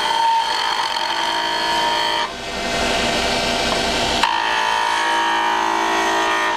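Skew chisel cutting a spindle turning on a wood lathe: a steady ringing hiss of the cut in two passes. The first pass ends about two seconds in, the lathe runs quieter for a couple of seconds, and the second pass starts about four seconds in.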